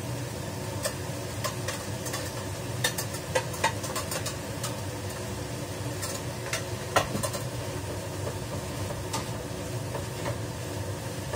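Chicken and onion sizzling as they are stir-fried in a wok, over a steady low hum. A metal spatula and bowl clink and knock against the wok a dozen or so times, briefly ringing, the loudest knock about two-thirds of the way through.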